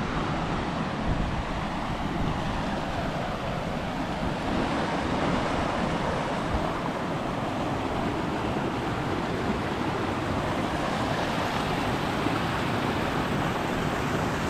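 Steady rushing of white-water river rapids, with wind buffeting the microphone in low gusts.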